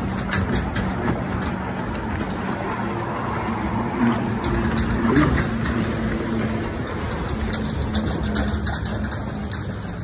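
Steady rushing noise of wind and lake water on an open lake, with a low steady hum underneath.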